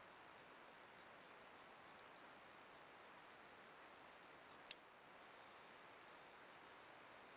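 Near silence: a steady faint hiss with faint, high insect chirping, about two chirps a second. A single sharp click comes about two-thirds of the way through, after which the chirps are only occasional.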